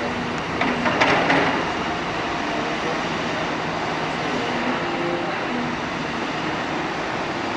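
Excavators working a dirt pit, a Caterpillar 325D among them: a steady diesel engine and hydraulic drone, with a short louder burst of scraping and rattling about a second in as a bucket bites into soil and stones.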